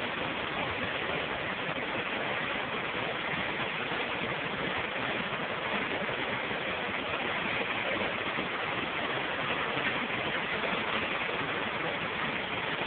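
River Doon running fast over white-water rapids: a steady, unbroken rushing of water.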